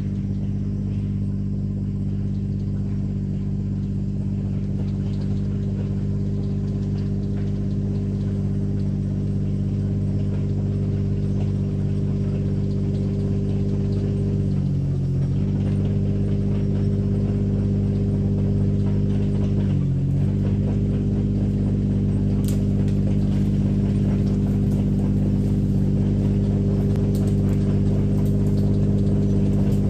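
Small tracked excavator's engine running steadily as the machine drives toward the listener, slowly growing louder. The engine note dips briefly twice, about halfway through and again some five seconds later.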